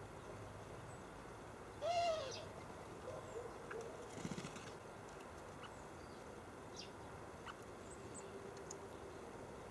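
A bird gives one short, full call about two seconds in, followed by a brief flutter of wings just after four seconds. Faint high chirps and ticks from small birds come later.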